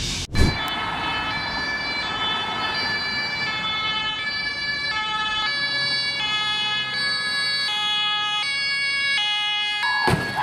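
Two-tone siren of a German Red Cross ambulance, switching between two pitches about every 0.7 seconds. There is a brief thump just after the start, and the siren pattern breaks off near the end with a crash as a car hits the ambulance's front.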